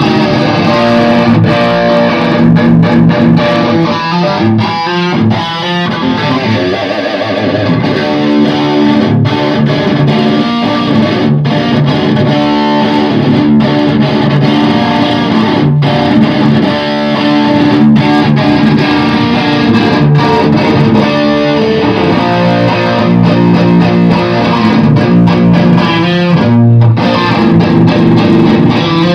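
Electric guitar played through an Orange Super Crush combo amplifier, a continuous run of riffs and chords.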